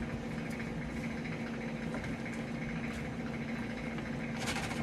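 Faint crunching and rustling of dry, crumbly bath bomb mixture being packed by gloved hands into a metal sphere mold, with a cluster of crisp scrapes near the end as more mix is scooped in. A steady low hum runs underneath.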